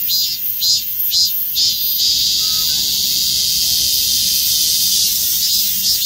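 Korean robust cicadas (chammaemi) singing: rapid pulsed high buzzing, about three pulses a second, runs until about two seconds in, then becomes a steady drone for about three seconds, and the pulses return near the end.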